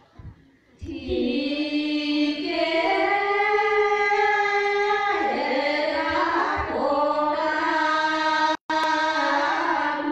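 Group of women singing a Karen tha chant together, voices only, in long held notes. The singing pauses briefly at the start, comes back in about a second in, and cuts out for an instant near the end.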